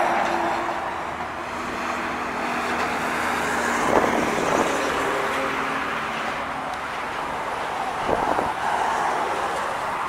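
Diesel semi-trucks pulling refrigerated trailers driving past on a highway: steady engine and tyre noise, with a sharp thump about four seconds in and another a little after eight seconds.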